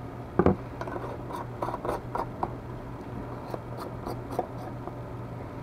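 Small clicks, taps and scratches of hands fitting together the plastic handle and plunger parts of a homemade yabby pump, with one louder knock about half a second in, over a steady low hum.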